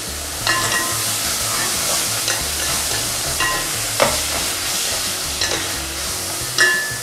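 Peppers, garlic and tomato paste sizzling in a pot while a wooden spoon stirs them. The spoon knocks against the pot about six times, each knock ringing briefly; the sharpest comes about four seconds in and another just before the end.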